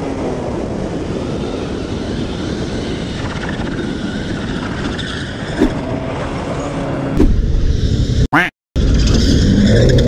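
Motorcycle riding sound: steady wind rush and engine noise, as picked up by a camera on a moving bike. About seven seconds in it cuts to a louder, deeper engine rumble, drops out for a split second, then a motorcycle engine runs steadily at low revs.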